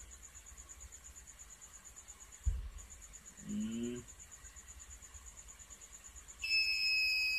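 A high, fast-pulsing trill runs under everything, with a single thump about two and a half seconds in and a brief voiced sound just after. Near the end a loud, steady electronic buzzer tone sounds for almost two seconds.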